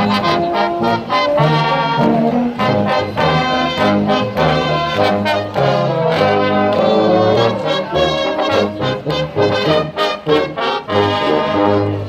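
Brass band playing a tune outdoors, deep tuba notes under the higher brass, with a steady beat; the music breaks off suddenly at the end.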